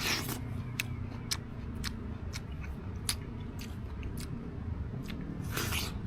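Crisp sweet melon being bitten and chewed: a crunchy bite at the start and another near the end, with crisp crunches about every half second in between.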